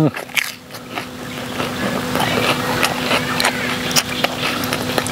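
Close-up chewing of crisp raw lettuce: a run of many small, irregular crunches with the mouth closed, and a faint steady hum underneath.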